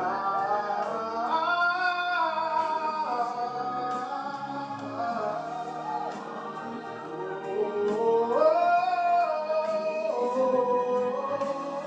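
Music with a singer holding long notes that slide up and down, without recognisable words.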